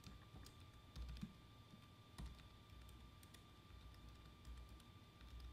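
Faint, irregular keystrokes of someone typing on a computer keyboard, with a faint steady high whine behind them.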